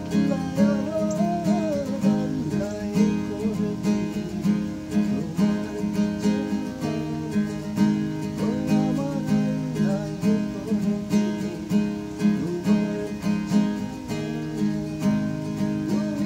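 Acoustic guitar with a capo on the neck, strummed in a steady rhythm.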